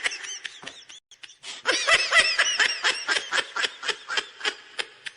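A child laughing in quick high-pitched bursts. One peal fades out, and after a short pause a second, louder peal starts about a second and a half in. It trails off in shorter and shorter pulses until it stops.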